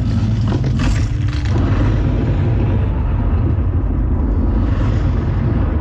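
Deep, rumbling soundtrack of a light-and-sound show played over large outdoor loudspeakers, with a brief sharper burst about a second in.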